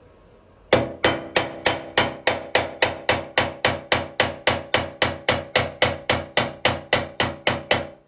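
A fast, evenly timed series of sharp metallic strikes, each with a short ringing tone, about three and a half a second. It starts abruptly about a second in and then cuts off suddenly.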